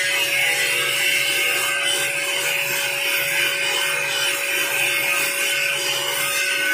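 Electric HVLP turbine paint sprayer running steadily as paint is sprayed onto metal railings. The turbine gives a steady hum, under a continuous hiss of air and paint from the spray gun.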